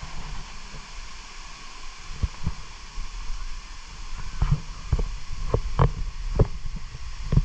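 Footfalls of someone walking down a forest trail's steps with the camera, heard as irregular thumps about one or two a second starting about two seconds in, over a steady hiss.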